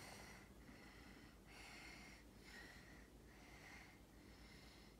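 Near silence with a person's faint breathing, several short breaths in a row with a slight whistle.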